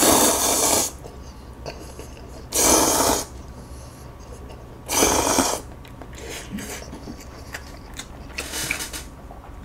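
Ramen noodles slurped into the mouth: three long slurps about two and a half seconds apart, each under a second, with chewing between them and a shorter, fainter slurp near the end.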